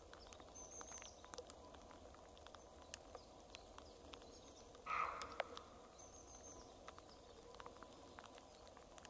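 Faint ambience of a wet forest: scattered soft drips and ticks, and a thin high bird call twice. About five seconds in comes a brief rustling noise lasting about half a second.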